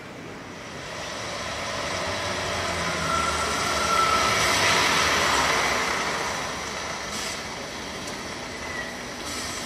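Recorded sound effect of a vehicle passing, likely a train, played during a stage blackout. It swells to a peak about halfway through and then fades, with a brief high squeal-like tone just before the peak.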